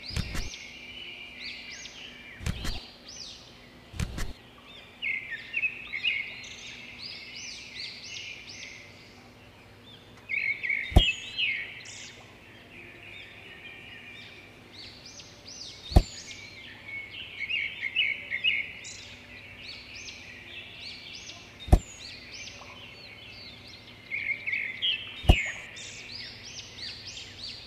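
Small birds chirping and twittering without pause, with several sharp taps a few seconds apart as small model pieces are handled and set down.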